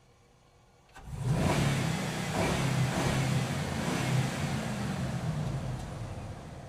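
Truck engine driving through a parking structure: it comes in suddenly about a second in, runs loud with a low engine hum, then fades away as it moves off.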